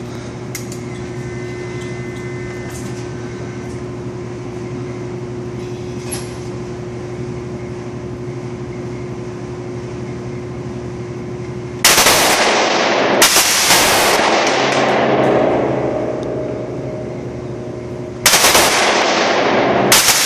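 A steady background hum with a few faint clicks, then an FN P90 fires on full auto: a long burst about twelve seconds in and another about eighteen seconds in, loud and echoing in an indoor range.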